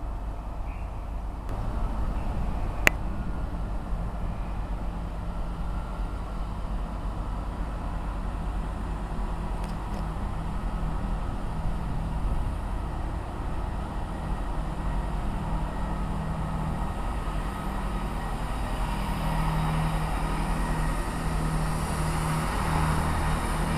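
Diesel train engine running at a station platform, a steady low hum that grows louder toward the end as the train draws nearer. There is one sharp click about three seconds in.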